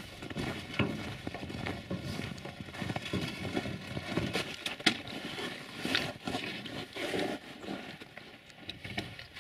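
Footsteps crunching on packed snow as a wheelbarrow is pushed along, with irregular crunching and clicking; it grows quieter near the end.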